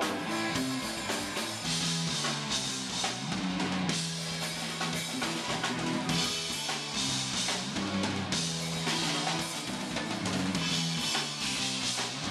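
Punk rock band playing live in an instrumental stretch: electric guitar, bass and a drum kit with heavy cymbals that swell every couple of seconds.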